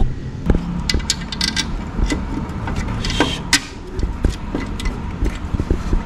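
Scattered metal clicks and knocks of hand work at an alternator's lower mounting bolt under a car's engine bay, with no regular rhythm, over a steady low rumble.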